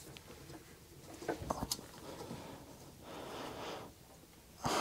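Light clicks and knocks of steel bicycle-spoke wire being bent around a screwdriver shank held in a vise, a few of them close together about a second and a half in, then a soft rustling noise.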